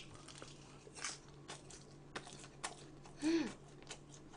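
Close-miked eating sounds: a person chewing and biting food, with scattered small mouth clicks and a short falling 'mm' hum about three seconds in.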